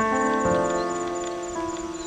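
Background piano music: a chord struck right at the start, ringing on and slowly fading, with another note added about half a second in.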